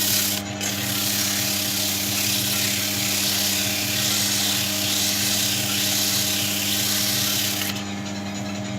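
A power tool's motor running steadily while coarse 100-grit sandpaper grinds against a soft pine wooden ball, a dense scratchy hiss over a steady hum. The sanding hiss drops away near the end while the motor hum carries on.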